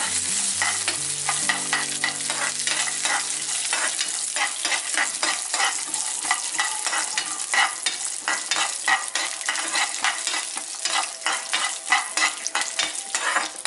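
Cashew nuts frying in ghee in a kadai, stirred with a spoon: a steady sizzle with frequent clicks and scrapes of the spoon and nuts against the pan.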